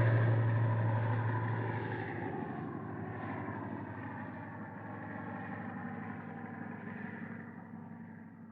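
Morane single-propeller airplane's engine receding after a diving pass, its pitch dropping slightly as it goes away and the sound fading steadily until it dies out near the end.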